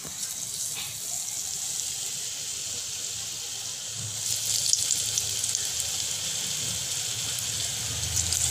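Besan-battered potato slices frying in hot oil: a steady sizzle with fine crackling, which grows louder about four seconds in as a second slice goes into the oil.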